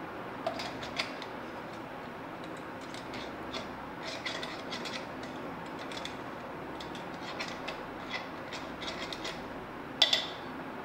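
Stainless-steel kitchenware being handled: light clicks and clinks of a steel tumbler, spoon and bowls, scattered irregularly, with one louder metal clank near the end.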